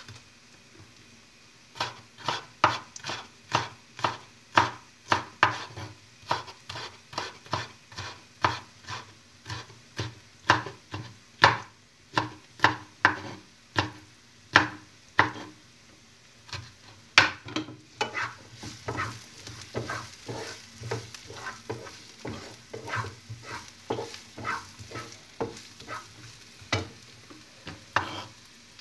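Kitchen knife chopping green pepper on a wooden cutting board: a long run of sharp knocks, about two a second, with a short pause about halfway through, then lighter, quicker cuts.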